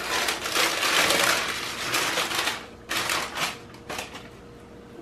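Parchment paper crinkling and rustling as a baked loaf is lifted out of a cast iron Dutch oven, followed by a few light knocks as it is handled and set down.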